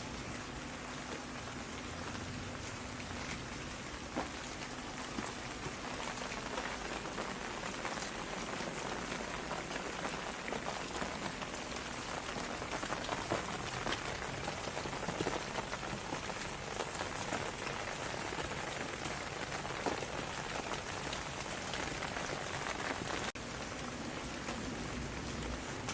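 Steady rain falling on a surface, with many individual drops heard as small, sharp ticks over an even wash of noise.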